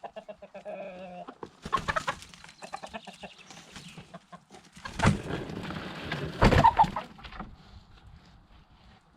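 Chickens clucking as they are fed leftover food, with rapid pecking-like clicks. There are two loud knocks about five and six and a half seconds in, the loudest sounds.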